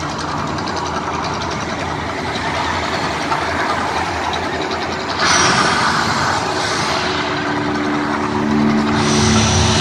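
Road traffic passing close by: cars and trucks going past in a steady, swelling rush. A louder rush comes in suddenly about five seconds in, and a low engine hum holds from about seven seconds on.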